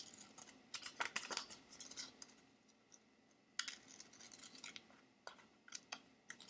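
Scissors snipping through paper while cutting a shape out: faint, short snips and crinkles in several clusters with brief pauses between them.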